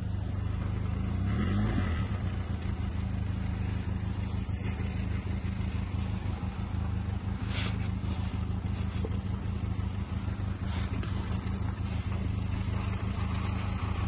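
Benelli TRK 502X adventure motorcycle engine running at steady, low revs while riding a dirt road, swelling slightly about a second and a half in, with a few faint short clicks later on.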